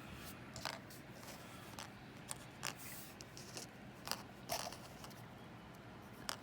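Faint, scattered small clicks and rustles of plastic model figures and their packaging being handled, about a dozen light taps over a few seconds.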